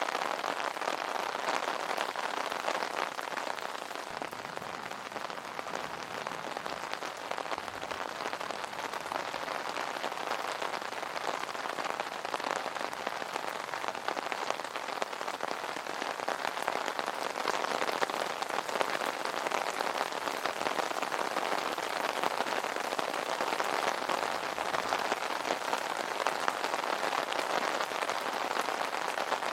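Steady rain falling on an umbrella: a dense, even patter of countless drops striking the canopy.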